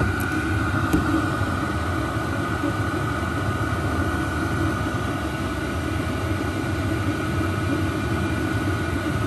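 Chinese diesel air heater (a Webasto-style clone) running hard, its blower and burner making a steady rumble with a steady whine over it. A light click comes about a second in.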